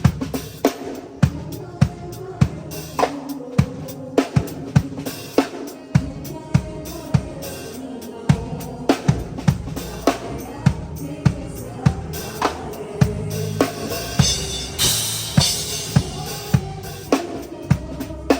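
Live band sound check: a drum kit plays a steady groove of kick and snare hits over sustained instrument tones. Low bass-guitar notes come in about a third of the way through, and a cymbal wash swells near the end.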